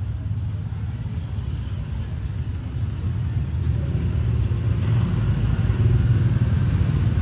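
Steady low rumble of road traffic that grows somewhat louder in the second half.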